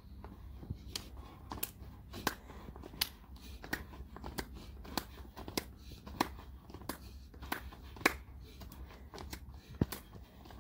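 Shoes stepping and scuffing on a gritty paved driveway as a man steps in place. The scuffs are sharp and gritty, coming about every two-thirds of a second in a steady rhythm over a low rumble of wind on the microphone.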